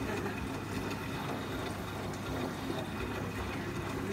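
Beko WTB1041R2A front-loading washing machine turning its drum during the wash of a Cottons 90 programme, with water and suds sloshing steadily inside and a low steady hum underneath.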